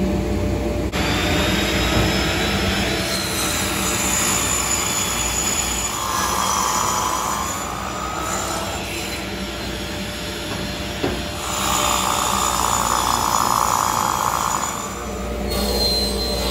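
Vertical panel saw's circular blade running with a steady high whine and cutting through a sheet of plywood, the cutting noise swelling twice as the blade passes through the panel. A second before the end it changes to a table saw running.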